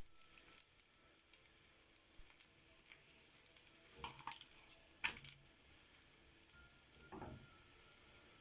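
Food sizzling in a frying pan: a steady hiss with scattered crackles, and a few louder knocks about four and five seconds in.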